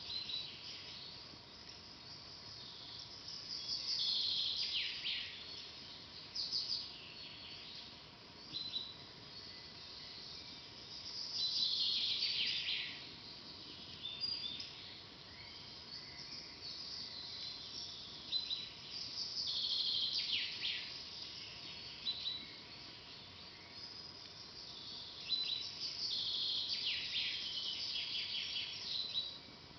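A songbird singing the same phrase again and again, about every seven to eight seconds. Each phrase is a high run of notes lasting two to three seconds that falls in pitch at its end, over a faint steady outdoor background.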